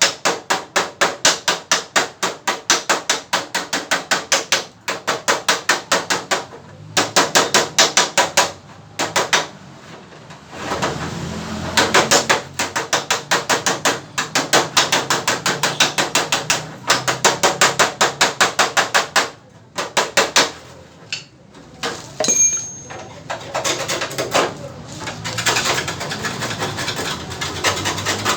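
A hammer tapping out a dent in a Mazda 323's fender with quick, even blows, about five a second, in runs of a few seconds with short pauses between.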